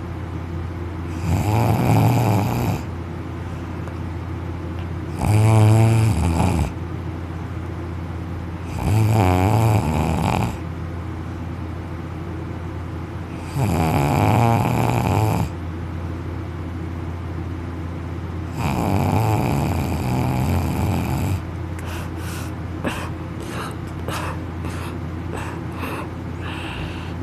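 A man snoring loudly in deep sleep, mouth open and lying on his back: five long, rattling snores a few seconds apart. After the last snore comes a rapid run of light clicks.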